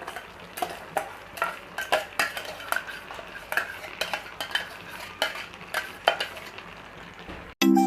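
A spoon stirring and scraping in a cooking pot, knocking against it about two or three times a second over a faint sizzle, as ground masala paste is mixed into simmering chicken gravy. Music starts suddenly near the end.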